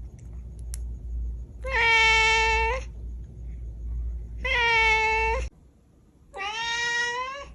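Domestic cat meowing three times, each meow about a second long, held at a steady pitch and bending up slightly at the end.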